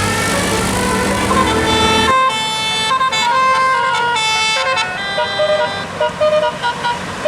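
Tour bus's multi-note 'telolet' musical air horn playing a quick tune of short stepped notes. For the first two seconds a bus engine's rumble runs under it; after that the horn sounds alone, clear and loud, with short breaks between phrases near the end.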